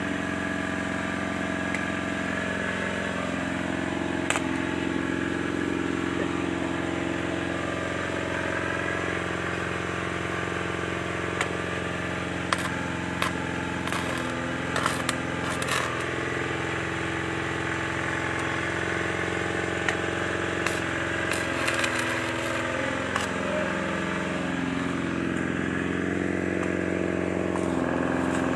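Excavator's diesel engine running steadily, its pitch wavering a few times in the middle and later, with scattered sharp clicks.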